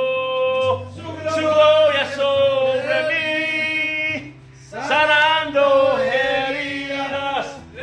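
Male voices singing a chant-like song in long held notes over a steady low accompaniment, with a short break a little past the middle.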